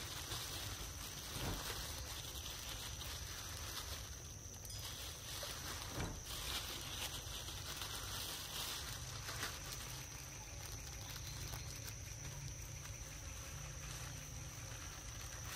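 Macaque biting and chewing a ripe, juicy mango, with wet smacking and squelching of the soft flesh, over a steady high-pitched whine.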